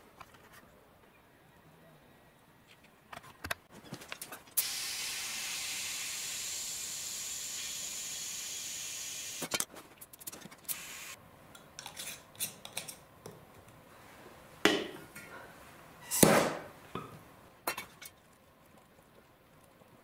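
Compressed air hissing steadily for about five seconds through an air chuck on a tire valve, filling the tire after the puncture plug. Then come light clicks and knocks of tools being handled, and a short, louder burst of noise a little past the middle.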